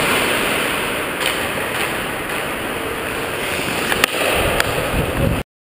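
Hockey skates gliding and scraping on the ice under a steady rushing noise, with a sharp click about four seconds in as the hockey stick hits the puck. The sound cuts off abruptly near the end.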